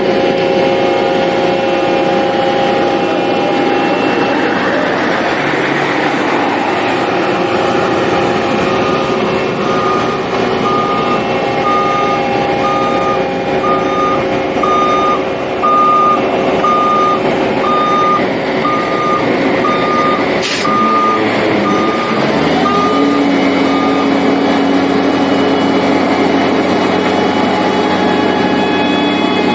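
Heavy road-construction machinery running steadily, with a reversing alarm beeping about once a second for around fifteen seconds. About two-thirds of the way through there is a single sharp click, then the engine note rises and settles at a new steady pitch.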